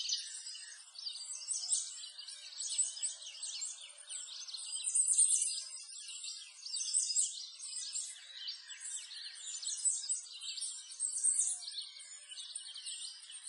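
A chorus of many small birds chirping and twittering at once, a dense, continuous run of short high calls that swells and fades every second or two.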